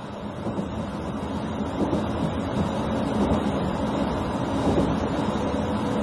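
Running noise heard inside the cabin of a JR Kyushu 783 series electric train under way: a steady rumble that fades up over the first couple of seconds, then holds level.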